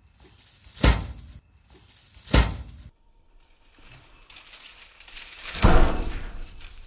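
Three sudden thumps, a second and a half apart and then about three seconds later. The third is the loudest and comes after a rising rushing hiss.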